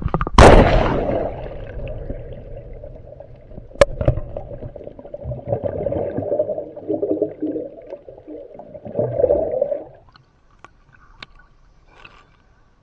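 A loud splash as a swimmer plunges into the sea, then muffled bubbling and rushing water heard from underwater while he swims, which stops about ten seconds in as he surfaces.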